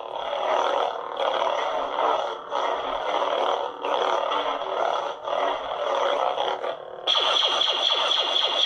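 Neopixel lightsaber's sound font playing through its built-in speaker: a steady electronic hum that swells and dips with each swing of the blade. About seven seconds in it drops out briefly, then comes back louder and buzzier.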